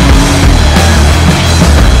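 Loud background music with sustained bass notes that change every half second or so.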